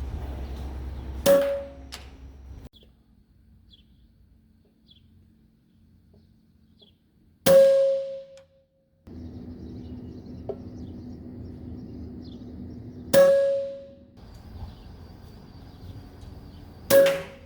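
.22 Hatsan PCP air rifle firing four shots a few seconds apart, each a sharp crack followed by a short metallic ring.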